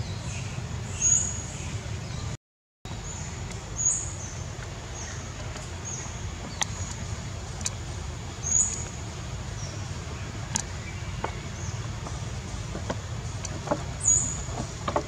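Outdoor ambience: a steady low rumble with short high chirps every second or two and a few faint clicks. The sound cuts out briefly about two and a half seconds in.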